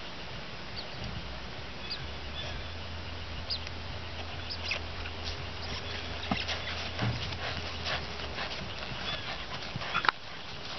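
Kentucky Mountain Saddle Horse moving off at her smooth gait across grass under a rider: soft hoof falls and tack noise, with scattered short sharp sounds, the loudest about ten seconds in.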